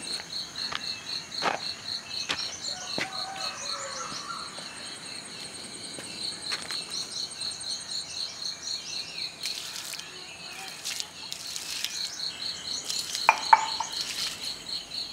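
Insects trilling steadily in a fast, high pulsing chorus, with birds chirping now and then. Two sharp knocks come close together about 13 seconds in.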